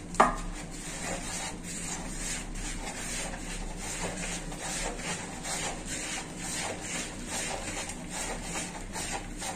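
A bare hand rubbing and stirring dry spice powders with ginger-garlic paste around the bottom of a plastic bowl: repeated dry rubbing and scraping strokes.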